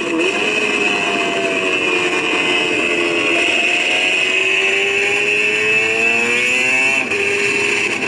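MV Agusta racing motorcycle engine from an onboard racing film, heard through a screen's speaker. The engine note climbs steadily under acceleration and drops suddenly about seven seconds in.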